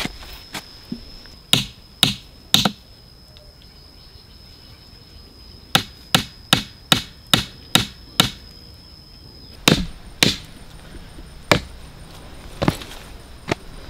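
Sharp blows of a hand tool struck over and over in uneven groups: three, then a quick run of about seven at two to three a second, then a few spaced strikes.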